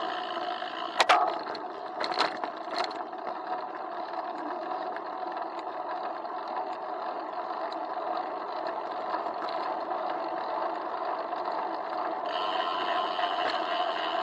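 Bicycle riding along a city street, heard through a waterproof camera housing on the handlebars: steady road and tyre noise, with three sharp knocks in the first three seconds as the bike jolts over bumps, the first the loudest.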